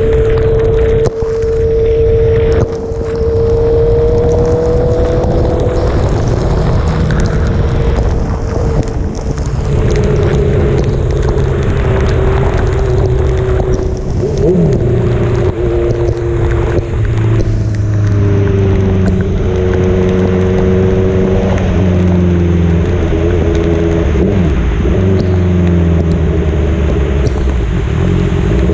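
Sport motorcycle's engine running while being ridden on a wet road, its note shifting down and up several times, over a steady rush of wind and road noise.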